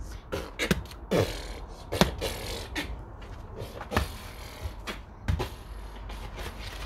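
A child beatboxing: low kick sounds that drop in pitch, sharp clicks and hissed snare sounds in an uneven rhythm.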